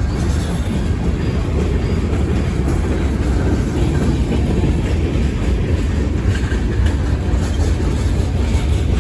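CSX local freight train rolling past at close range: a steady low rumble of steel wheels on the rails, with faint clicks.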